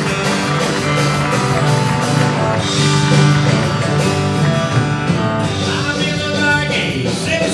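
Live country band playing a song with acoustic and electric guitars, fiddle, bass and drums, with singing.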